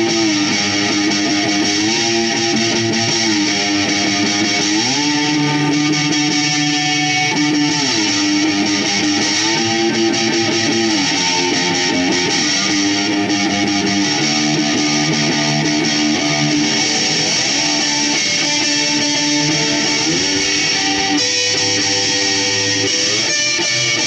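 Homemade lap-style slide guitar with a metal pan for its body, played flat on the lap. Strummed chords are held, then glide up or down to a new pitch every few seconds as the slide moves along the neck.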